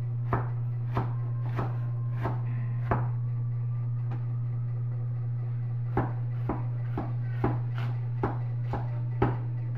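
Cleaver chopping garlic on a plastic cutting board: single chops about every two-thirds of a second, a pause of a few seconds, then a quicker run of chops from about six seconds in. A steady low hum sits underneath.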